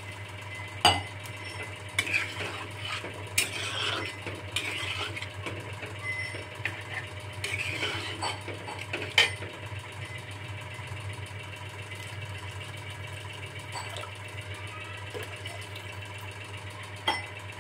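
Metal spatula scraping and clinking against a metal wok as a watery potato curry is stirred. There are a few sharp clinks, the loudest about a second in and again near nine seconds, over a steady low hum.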